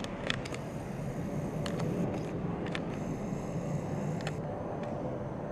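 MTR M-Train electric multiple unit running along the depot tracks, heard from inside the train as a steady rumble and hum. A few sharp clicks break through it, and about three seconds in a high squeal sounds for just over a second.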